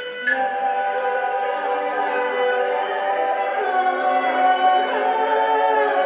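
A female voice singing a Chinese opera aria in a male scholar role, holding long, slowly gliding notes.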